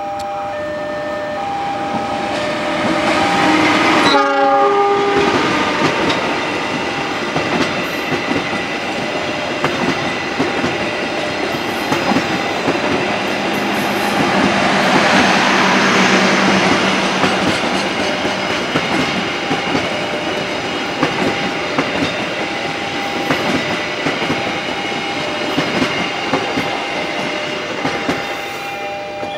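Diesel-hauled passenger train passing close by: the locomotive's horn sounds and drops in pitch as it goes by about four seconds in. Then a long rake of coaches runs past with a rhythmic clickety-clack of wheels over the rail joints, loudest around the middle and dying away near the end. A beeping warning signal of short repeated tones is heard at the start and again near the end.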